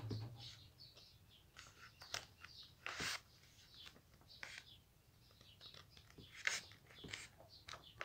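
A sheet of paper rustling and crackling faintly as it is handled and bent, with a few sharper crackles about three seconds in and again past six seconds.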